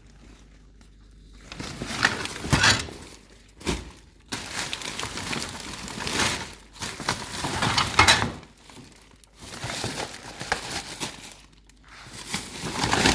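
Rummaging through rubbish in a dumpster: plastic bags crinkling and loose items shifting, in irregular bursts with short pauses.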